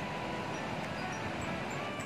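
Steady rushing of a shallow river flowing over rocks, with a few faint high chirps.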